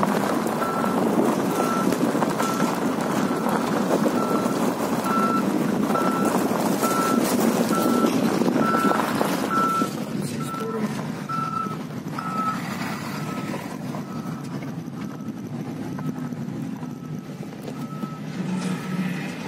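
Reversing alarm on road-construction machinery beeping about once a second, over the rumble of a car driving past; the beeps grow faint after about ten seconds.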